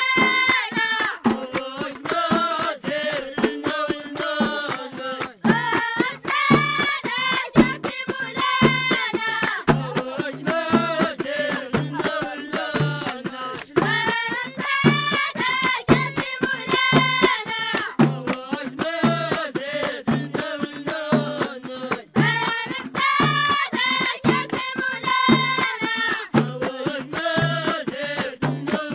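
Traditional Berber song from Morocco's High Atlas valleys sung by children, over a steady beat of hand percussion.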